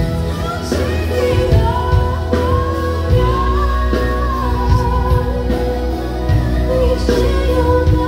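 A woman singing live with a pop band accompanying her, the sung melody gliding over a steady bass and drums.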